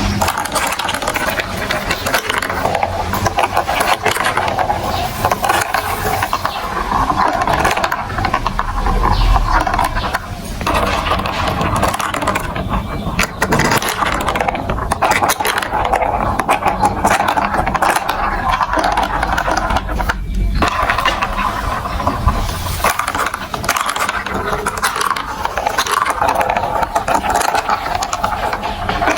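Marbles rolling and clattering through a plastic building-block marble run: a continuous dense rattle of many small clicks and scrapes.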